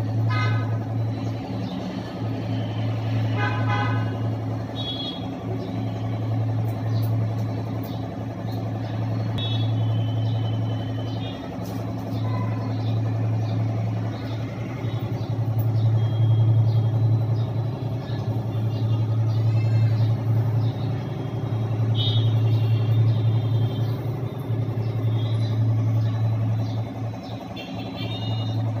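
A steady low mechanical hum, with short horn-like toots now and then, near the start and again a few seconds in, and scattered high chirps.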